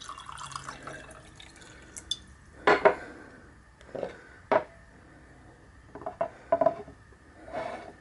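Water dripping and trickling as a wet sock is lifted out of a drinking glass, followed by a series of separate clinks and knocks as glass tumblers are picked up and set down on a wooden table, the loudest a little under three seconds in.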